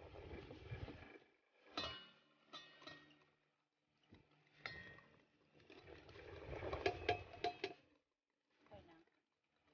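Wire whisk stirring cake batter in a glass mixing bowl: irregular scraping strokes, with the wires clinking sharply against the glass, several clinks in quick succession past the middle.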